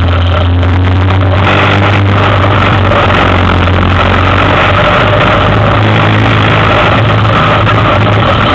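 Yamaha Big Bear 400 ATV's single-cylinder four-stroke engine running steadily while under way, a loud, even low note with no revving.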